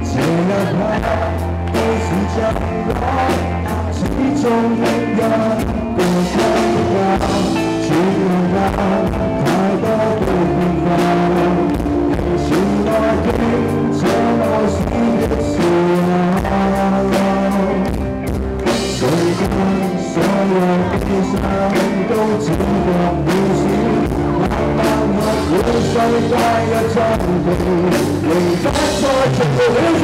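Live rock band playing: a male lead singer over electric guitars, bass guitar and a drum kit, loud and continuous.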